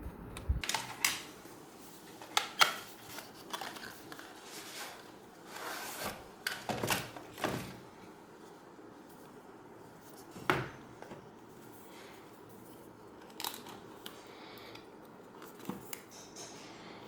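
Packaging being handled and opened by hand: scattered sharp clicks and taps with short rustling and scraping noises, busiest in the first half and thinning to a few light taps later on.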